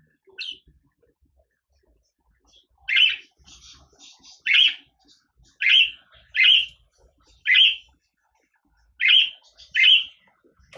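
Budgerigar giving a string of short chirping calls, about eight loud ones spaced irregularly half a second to a second and a half apart, with softer chatter between the first few.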